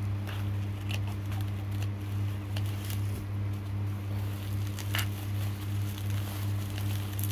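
Bubble-wrap plastic packaging crinkling and crackling in scattered short bursts as it is snipped with scissors and pulled open by hand, the sharpest crackle about five seconds in, over a steady low electrical hum.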